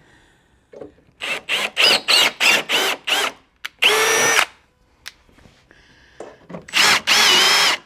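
Cordless drill running a greased thread tap into a hole in an aluminum rock slider. It goes in a quick series of short trigger pulses, then two longer runs, the motor whine rising in pitch each time it spins up.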